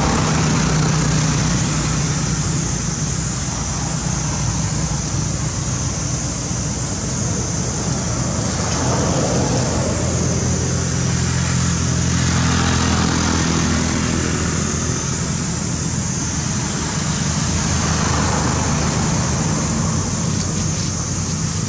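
A steady engine hum, like a motor vehicle running, with a constant high hiss above it.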